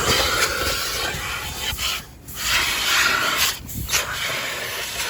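Loud rushing hiss of car-wash cleaning equipment working on the car, in three long stretches broken by two brief drops about two and three and a half seconds in.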